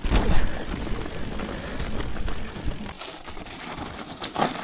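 Mountain bike running over wet roots and rocks on a descent: tyre rumble and the rattle of the bike, easing off about three seconds in, with one sharp knock near the end.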